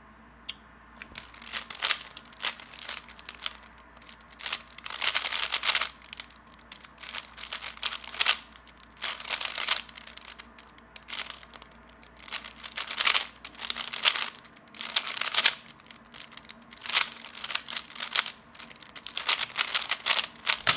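3x3 speed cube being turned fast by hand: rapid plastic clicking and clacking in bursts, with short pauses between them.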